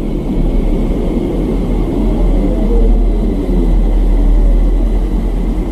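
Deep, steady rumbling drone with wavering tones rising and falling above it: a sonified space recording presented as the sound of planet Earth, made by converting electromagnetic waves picked up by satellites into audio.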